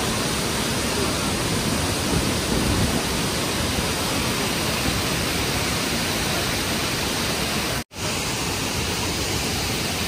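Tirathgarh waterfall in full monsoon flow: heavy water pouring down stepped rock and crashing into the pool below, a loud, steady rushing noise. It cuts out for an instant about eight seconds in, then carries on unchanged.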